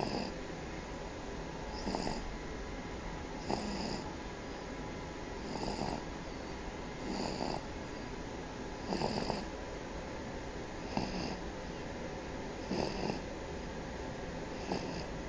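A sleeping baby snoring, a short snore with each breath about every two seconds.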